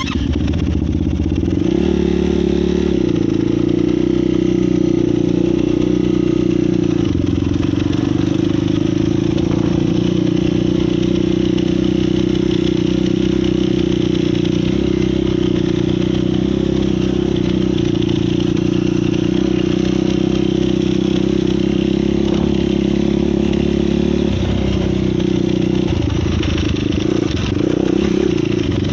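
Yamaha YFZ450 quad's single-cylinder four-stroke engine running under way at a mostly steady throttle, with the revs shifting a couple of seconds in and again late on.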